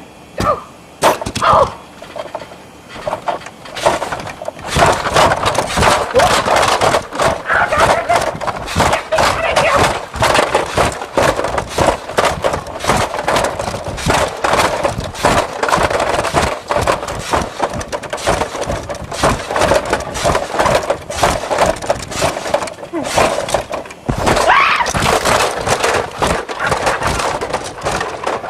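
Toys clattering and knocking together nonstop as they are shaken to act out an earthquake. It starts with a few separate knocks and becomes a dense clatter about four seconds in.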